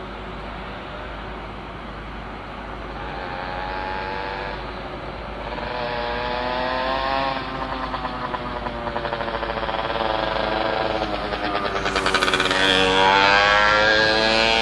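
A heavy machine's engine revving, its pitch rising and falling and the sound growing louder from about three seconds in, loudest near the end.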